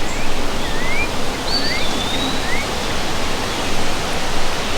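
Steady wind rushing, with a small bird's short rising chirps, about four of them, and one higher whistled note about a second and a half in.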